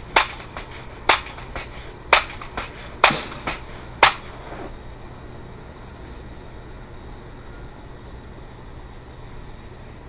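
Scoped air rifle fired five times in quick succession, about one shot a second, each sharp crack followed shortly by a fainter click. The shooting stops about four seconds in, leaving only a low steady background.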